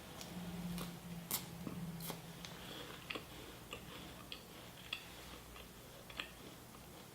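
Faint, scattered crunches and clicks of a person biting into and chewing a chocolate-coated peanut butter wafer bar.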